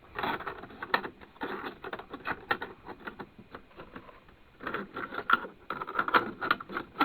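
Plastic keys and cassette door of a radio-cassette player clicking and clacking irregularly as they are pressed and handled, with a busier run of clicks about five seconds in.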